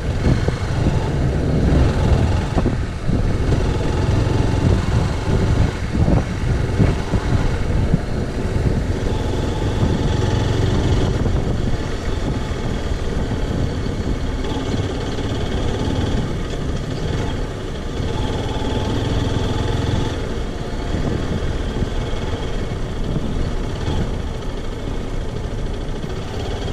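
Zontes X1 350's liquid-cooled single-cylinder engine running under the rider while riding in traffic, a steady rumble that is a little more uneven in the first several seconds.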